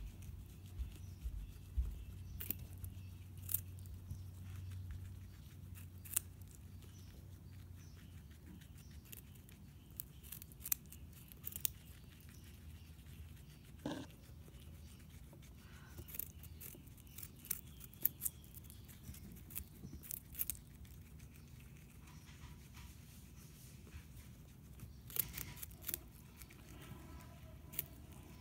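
Guinea pig biting and chewing a carrot stick held out to it: scattered sharp, crisp crunches coming in bunches.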